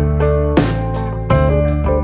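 Background music: plucked notes changing chord about every half to three-quarters of a second over a steady bass line.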